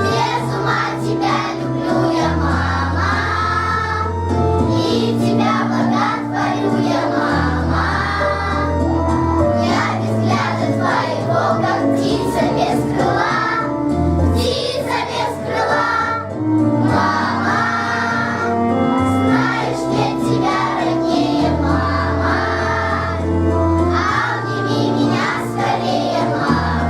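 Children's choir singing a song to their mothers over instrumental accompaniment, with a steady bass line moving from note to note every couple of seconds.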